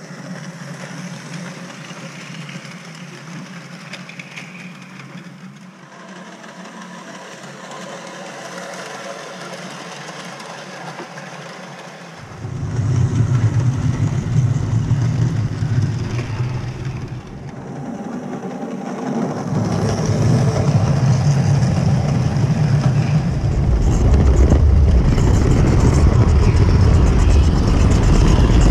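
Electric model train running on the layout's track: a steady motor hum with wheel rumble. About twelve seconds in it becomes a much louder, deeper rumble, picked up at track level right beside the moving train, and it grows louder again near the end.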